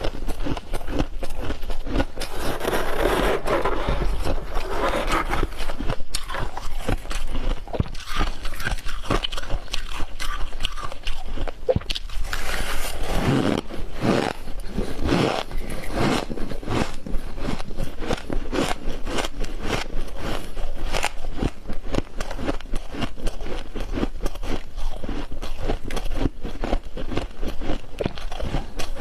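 Freezer frost crunching and scraping close to the microphone as it is bitten and chewed: a dense, unbroken run of small crackling crunches.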